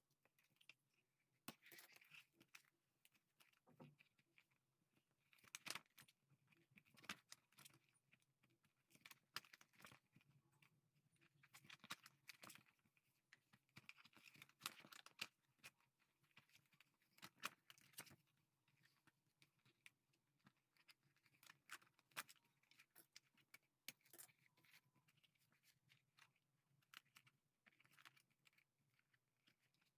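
A spiral notebook being taken apart by hand: faint, irregular paper rustling and tearing with small clicks as the spring binding is worked out of the pages.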